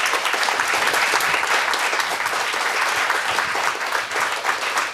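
Audience applauding, a dense steady clapping that follows a spoken "thank you" closing a talk.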